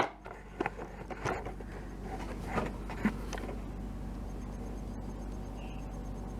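A few light clicks and scrapes of hand work on a turn-signal bulb socket during the first three seconds, then only a steady low hum.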